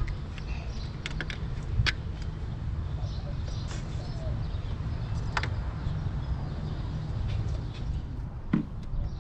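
Scattered light clicks and knocks from hands and tools working on parts in a car's engine bay, with a few sharper clicks, over a steady low rumble.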